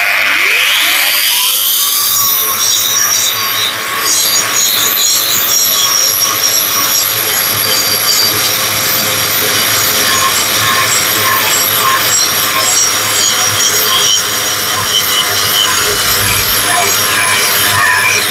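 Caowang CW1336 wall chaser with a grinding wheel, grinding a concrete floor: its motor comes up to speed in the first second, then it runs in a loud, continuous grind.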